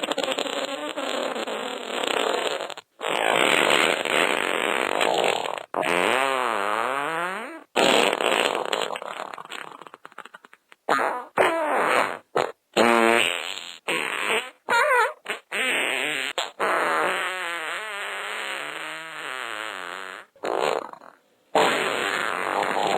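A string of fart sound effects played back to back, each cut off abruptly: some long with a wavering pitch that bends up and down, others short.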